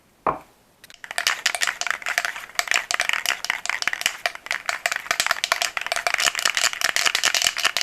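A short knock, then an aerosol spray paint can of red base coat being shaken hard, its mixing ball rattling rapidly and continuously as the paint is mixed before spraying.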